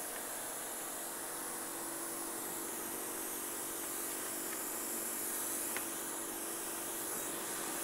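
Self-service car wash machine's spray wand jetting a fine spray onto a car's hood and windshield, a steady hiss with a steady low hum underneath.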